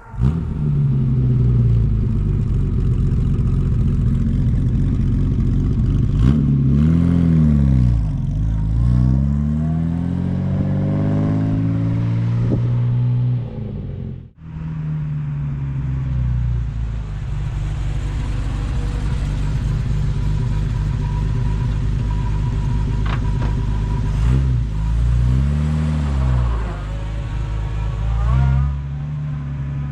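1951 Jaguar XK120's 3.4-litre twin-cam straight-six engine idling, with throttle revs that rise and fall back to idle, about seven seconds in and again near the end. It briefly cuts out about halfway through.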